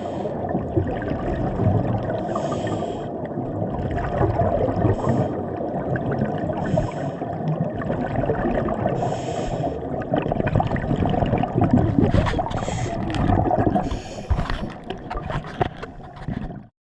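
Underwater recording from a diver's camera: a muffled rumble of moving water, with short hissing bursts of exhaled bubbles from a scuba regulator every two to three seconds. The sound cuts off suddenly near the end.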